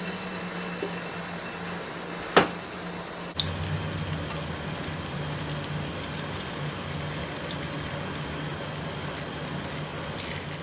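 Battered cauliflower florets frying in hot oil in a pan, a steady sizzle, with one sharp click about two seconds in.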